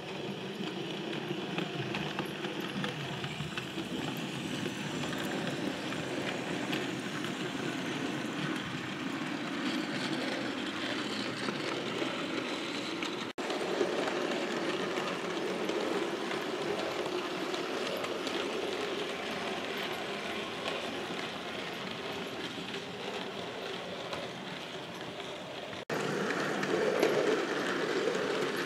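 OO gauge model steam locomotive and wagons running along the layout's track: a steady mechanical running and rattling sound of the model's motor and wheels on the rails. It breaks off abruptly twice where shots change, and is louder after the second break near the end.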